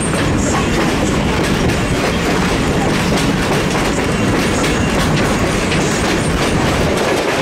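Railway passenger car rolling along the track at speed, a loud steady rumble and rattle of wheels on rail with faint clicks, heard from aboard the train.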